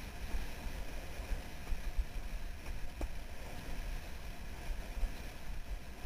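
Wind buffeting the microphone in a heavy, uneven rumble, over the steady hiss of water rushing past a windsurfing speed board planing at speed, with one faint click about halfway through.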